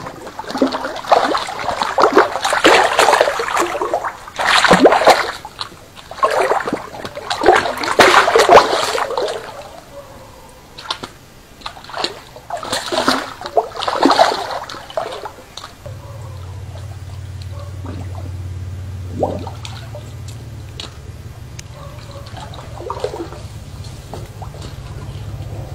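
Water splashing and sloshing in irregular bursts, dying away about two-thirds through, when a steady low hum takes over.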